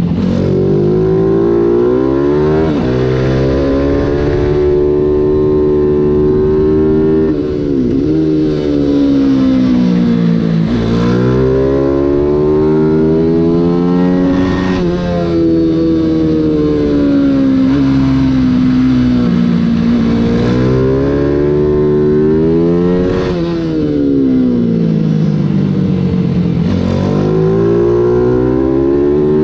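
Mini GP 140 race bike's 140 cc engine, heard from on board at racing speed, its revs climbing hard and then dropping again several times as the rider accelerates, shifts and brakes for corners.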